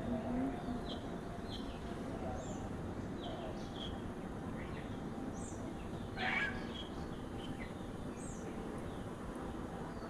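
Small birds chirping on and off in the background, with one louder, short animal call about six seconds in, over a steady background hiss.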